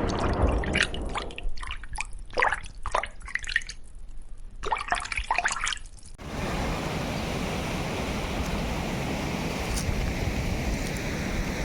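Water dripping and splashing in separate drops for about six seconds. Then a steady rushing noise comes in abruptly.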